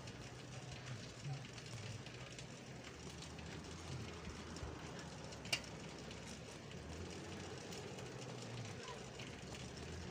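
Low, steady rumble of a moving vehicle's engine and tyres on a paved road, with a single sharp click about five and a half seconds in.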